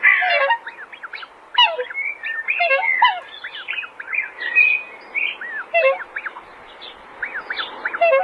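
Many young birds peeping at once: a brood of short, high, arching chirps overlapping one another, with a few lower calls, over a steady hiss.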